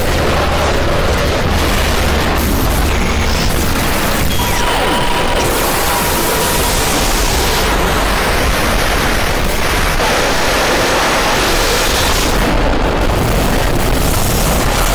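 Harsh digital noise music in cut-up style: a loud, dense wall of distorted noise over a heavy low rumble, its texture switching abruptly every few seconds, with a faint held tone for a couple of seconds about a third of the way in.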